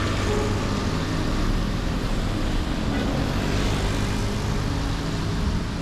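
Car driving on a wet road in the rain, picked up by a camera mounted on its hood: a steady hiss of tyres, rain and wind over a low engine rumble.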